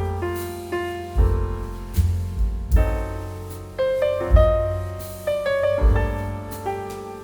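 Background music: piano chords and melody, each note struck and then fading.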